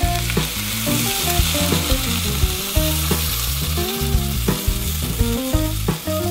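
Chicken stock poured from a can into a hot saucepan of olive oil and stuffed artichokes, sizzling as it hits the oil. The sizzle starts right away and continues steadily, with a background music melody underneath.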